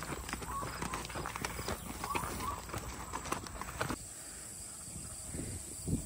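A mare's hooves clopping at a walk on a dirt and gravel lane, mixed with crunching footsteps of the person leading her. About four seconds in, the steps stop abruptly and a quieter, steady outdoor background is left.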